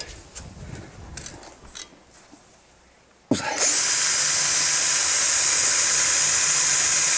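Bosch electric drill starting with a click a little over three seconds in, then running at a steady speed, drilling a hole through a cardboard template into the plastic mud flap. A few faint handling clicks come before it.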